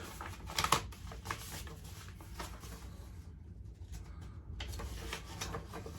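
Faint rustling and light clicks of paper being handled, over a steady low rumble.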